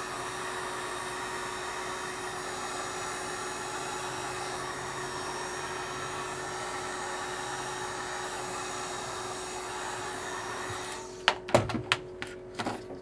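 Heat gun blowing steadily with an even hiss and a steady hum from its fan motor, warming the adhesive under a tablet's digitizer. It cuts off about eleven seconds in, followed by a few sharp clicks and knocks.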